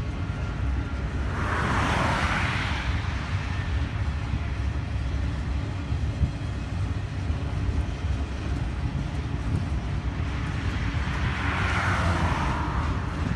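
Double-stack container train's well cars rolling past, a steady low rumble of wheels on rail. A car passes on the road about two seconds in and another near the end, each a swelling and fading tyre swoosh that is the loudest thing heard.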